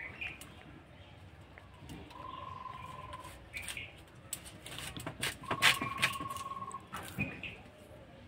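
Cauliflower being broken apart and sliced on a boti, the curved floor-mounted kitchen blade: crisp snaps and cracks, thickest and loudest a little past the middle. A steady whistle-like note, about a second long, sounds twice.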